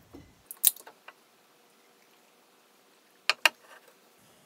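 Glassware and a beer can set down on a wooden barrel top: a few light knocks and clinks in the first second, then two sharp knocks in quick succession about three and a half seconds in.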